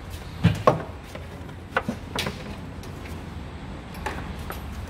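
A handful of short metal clicks and knocks, loudest about half a second in and again near two seconds, as the BMW E36 front control arm's rear bushing bracket is pressed up into place against the underbody. A steady low hum runs underneath.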